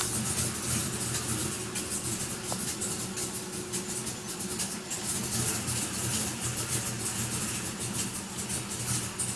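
Car engine idling just after starting, with a fast, light ticking over the steady run, which the owner suspects may be a bad valve lifter.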